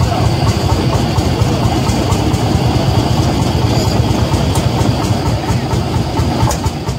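Vintage tractor engine idling with a steady low chug.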